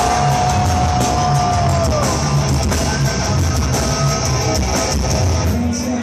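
Heavy metal band playing live and loud, heard from within the crowd: distorted electric guitars and bass over pounding drums. A long high held note slides down about two seconds in, and the low end drops away near the end.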